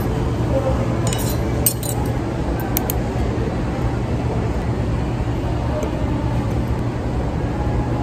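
Steady background ambience with a low hum and faint indistinct voices, and several light clinks between about one and three seconds in.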